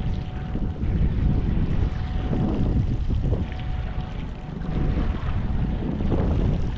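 Strong wind buffeting the microphone: a dense, steady low rumble with gusts, over a faint steady thin tone.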